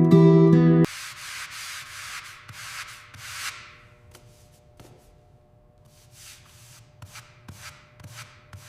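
Acoustic guitar music cuts off about a second in, followed by a few seconds of hand-sanding strokes rubbing over a surface. After that come faint scrapes and a few light taps.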